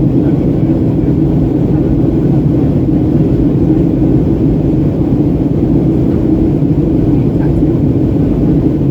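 Steady cabin drone inside a Boeing 737-800 in flight: the CFM56 jet engines and the airflow over the fuselage make an even, low noise that does not change.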